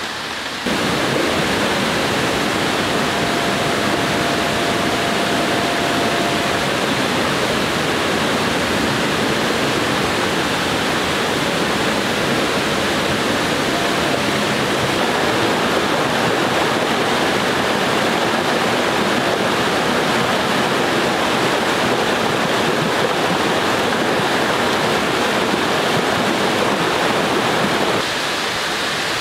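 A swollen river rushing steadily, running high and fast after about three hours of rain.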